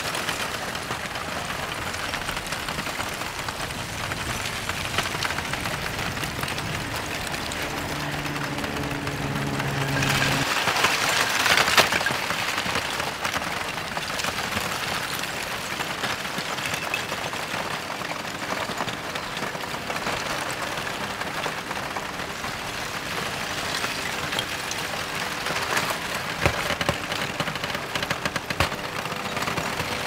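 Advancing blocky lava flow front crackling and clinking without pause, like breaking glass, as its cooling crust cracks and loose blocks shift and tumble. About ten to twelve seconds in it swells into a louder rush of sliding rock, with a few sharper cracks near the end.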